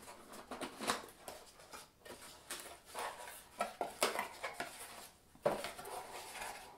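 Small cardboard box being opened by hand: irregular rustling and scraping of the card flaps, with a sharper snap of card about five and a half seconds in.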